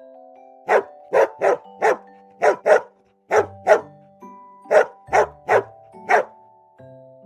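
A dog barking, about a dozen sharp barks in quick groups of one to three, over gentle mallet-percussion background music.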